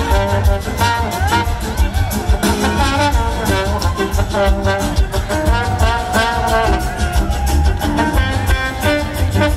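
Live blues-rock band playing, with a trombone solo of gliding, sliding notes over pounding drums and bass.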